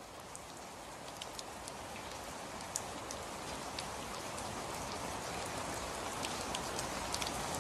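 Rain falling: a steady hiss sprinkled with sharp drop ticks, slowly growing louder.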